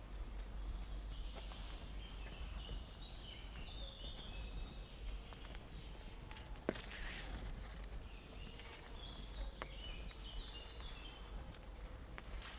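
A songbird singing two phrases of short notes that step down in pitch, one at the start and another about two-thirds through, over footsteps on the forest path with a few sharp clicks and a brief rustle.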